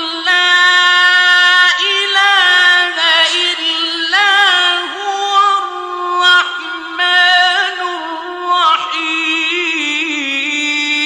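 A solo male voice reciting the Quran in the melodic mujawwad style, holding long drawn-out vowels with wavering ornamental turns. The pitch steps a little lower near the end.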